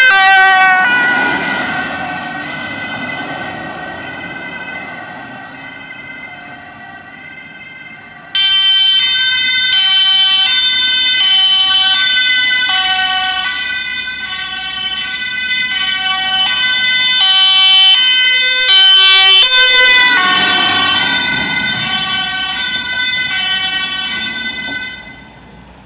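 Dutch ambulance two-tone siren alternating between a high and a low note, with road noise as the vehicle goes by. The pitch drops slightly as each ambulance passes, once just after the start and again about 20 s in. The siren fades away, comes back loud about 8 s in, alternates faster for a moment around 19 s, then fades and stops shortly before the end.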